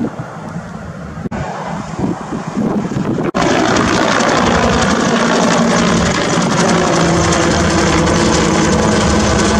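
Bell UH-1 'Huey'-type firefighting helicopter with a slung water bucket flying low overhead: steady turbine and rotor noise. It jumps louder at a break about three seconds in and then holds steady.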